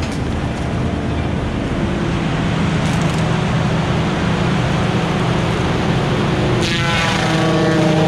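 Kubota SVL95 compact track loader's diesel engine running hard with its hydraulic CID 60-inch disc mulcher spinning, a loud steady machine drone. Near the end a pitched, whining tone appears in the sound as the disc is brought against a small tree.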